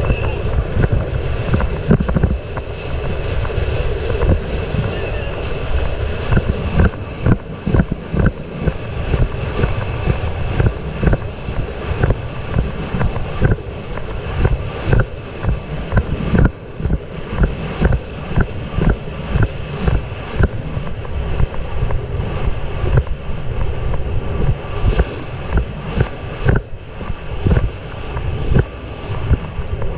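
Heavy wind buffeting the microphone at a gallop, with the regular thuds of a racehorse's galloping stride on a dirt track coming about twice a second.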